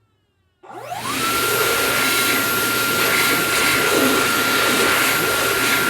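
Powerful bathroom hand dryer switching on: after a brief silence its motor whine rises quickly to a steady high pitch within about half a second, over a loud, steady rush of blown air.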